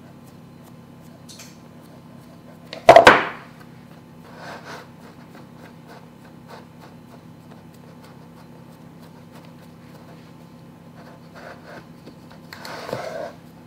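A metal springform pan knocks once, sharply, against a wooden cutting board about three seconds in, followed by a few softer bumps. Near the end it scrapes as it is turned on the board, over a faint steady hum.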